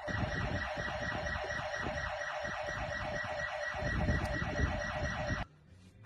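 Home security alarm siren sounding a rapid, repeating warble that cuts off suddenly about five and a half seconds in as the alarm is switched off.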